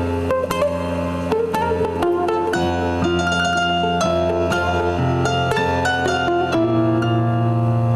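Live band playing an instrumental passage: plucked guitars over held keyboard chords and a steady low bass line, the bass shifting to a higher note about five seconds in.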